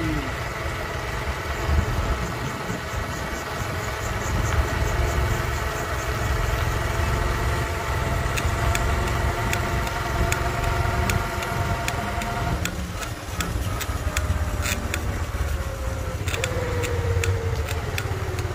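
Small motorbike engine running while riding, with a steady low rumble underneath. Over the last few seconds the engine note falls as the bike slows.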